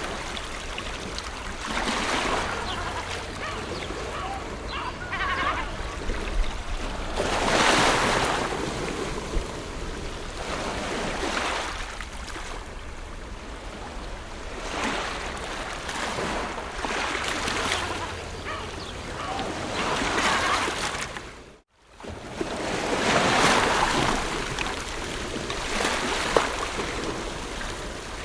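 Ocean surf: waves breaking and washing up the shore in swells every few seconds. The sound cuts out for a moment about two-thirds of the way through.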